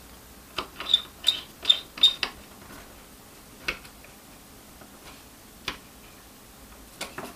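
Small screwdriver turning a terminal screw on a current shunt resistor to clamp a jumper wire: a quick run of about six sharp clicks about a second in, then a few single clicks spaced well apart.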